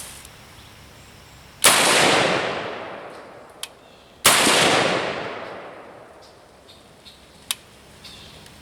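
Two shots from a Springfield M1A semi-automatic rifle in .308, about two and a half seconds apart, each followed by a long fading echo.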